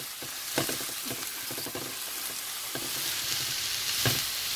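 Sliced mushrooms and onion sizzling in a hot oiled frying pan while a plastic slotted spatula stirs them, with several scrapes of the spatula against the pan, the loudest near the end.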